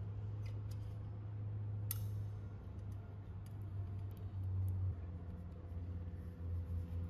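A steady low hum with a few faint clicks, one sharper about two seconds in.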